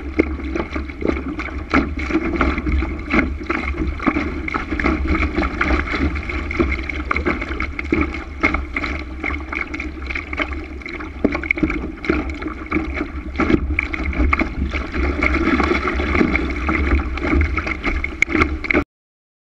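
Water rushing and splashing along a Laser sailing dinghy's hull under way, with wind buffeting the microphone as a steady low rumble. The sound cuts off suddenly near the end.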